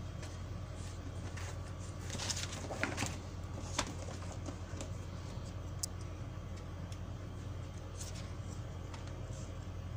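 Glossy magazine page being turned by hand, with a short paper rustle about two to three seconds in and a few light clicks of paper, over a steady low hum.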